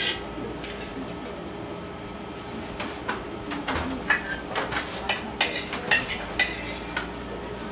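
Metal spoon clinking and scraping against a frying pan as brown stew sauce is spooned out over fried fish. There is a run of sharp metallic clinks from about three seconds in, over a steady background hum.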